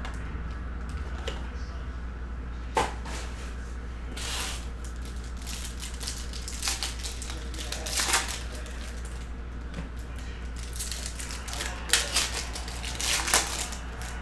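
Foil wrappers of 2022 Topps Chrome baseball card packs crinkling as they are handled, with scattered sharp rustles and taps. Near the end a pack is torn open by hand. A steady low hum runs underneath.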